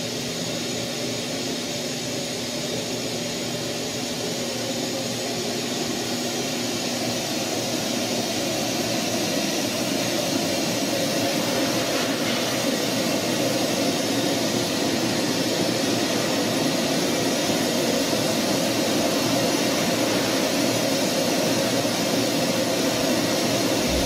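Nilfisk CFM A15 EXP compressed-air (pneumatic) explosion-proof vacuum running steadily while vacuuming a floor: a continuous rush of air, with a low hum that stops several seconds in.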